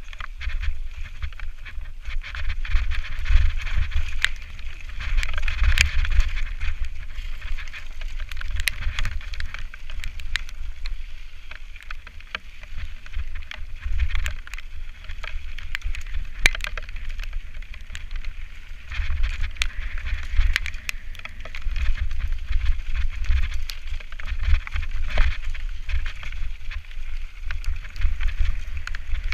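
Mountain bike ridden fast down a wet dirt-and-stone singletrack: tyres hissing and crunching over the trail, frequent sharp knocks and rattles as the bike hits stones and roots, and a steady low rumble of wind buffeting the microphone.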